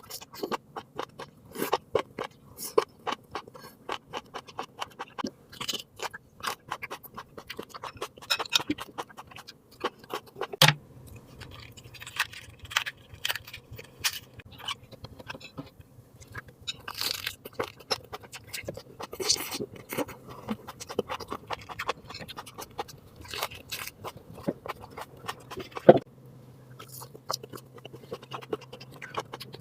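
Close-miked chewing of crisp jellyfish and pickled Thai eggplant (cà pháo): a steady run of wet crunches and mouth clicks, with a few sharper, louder crunches.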